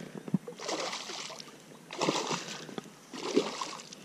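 A hooked zander splashing at the water's surface close to the bank: three splashes about a second apart.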